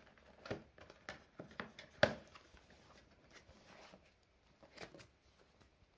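Cardboard box for a mini PC being handled and opened: soft rustling and scraping of cardboard with scattered light clicks, and one sharp tap about two seconds in.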